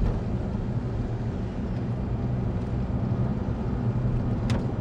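Cockpit noise of a Boeing 747 freighter at rotation and liftoff under takeoff power: a steady rumble of engines and airflow with a low hum. There is a brief click near the end.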